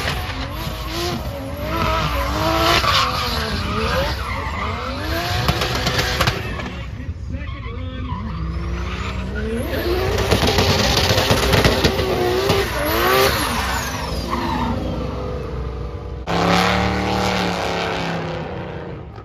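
Drift cars' engines revving up and down while their tyres squeal and skid as they slide around the track. Near the end the sound switches abruptly to a steadier engine note.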